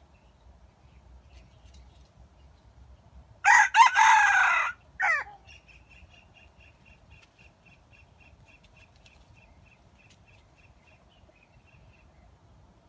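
A junglefowl rooster crows once, a loud crow of about two seconds that ends in a short, falling final note. After it, a faint, even run of short high pips, about three a second, goes on for several seconds.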